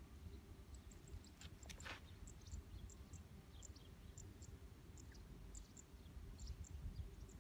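Faint outdoor ambience: a steady low rumble of wind on the microphone with many short, high chirps scattered throughout, and a short burst of noise about two seconds in.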